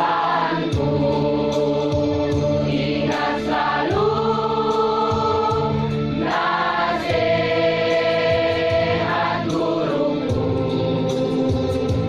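Mixed choir of men and women singing a slow song in long held notes, moving to a new phrase about every three seconds, over a steady organ-like keyboard accompaniment.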